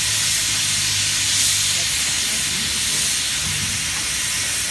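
Steam locomotive blowing off steam: a loud, steady hiss that starts suddenly just before and holds, over a low steady hum.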